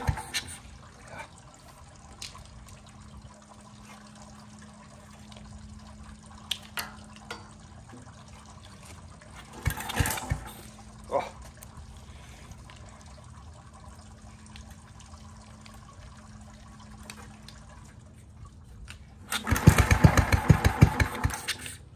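Honda G300 engine being rope-started. It fires briefly about ten seconds in, then near the end catches and runs in rapid, even pulses for about two seconds before it stops. Its throttle is not working, which the owner puts down to a sticking governor.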